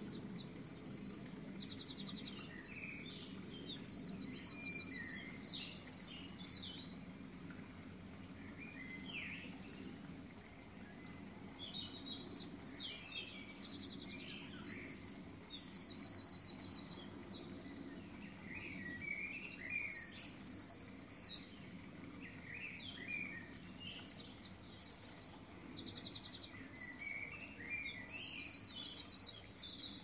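Songbird singing high chirps and fast trills in bursts, with much the same phrase sequence returning about every eleven seconds, over a low steady hum.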